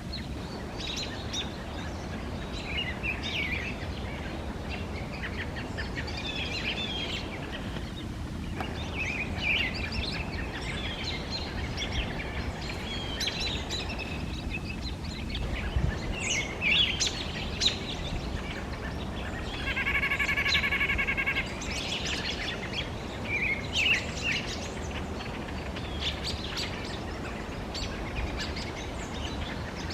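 White-breasted nuthatches and other small birds chirping on and off, with one rapid run of pitched notes lasting over a second about two-thirds of the way through, over a steady low background rumble.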